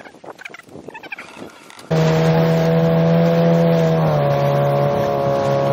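Small 15-horsepower outboard motor running steadily under way, over wind and water noise; its pitch drops slightly about two seconds after it starts. Before it comes in, about two seconds of quieter sound with short high chirps.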